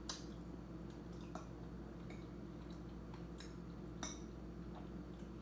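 Metal fork clinking and scraping against a dinner plate: several scattered sharp clinks, the loudest at the very start and about four seconds in, over a steady low hum.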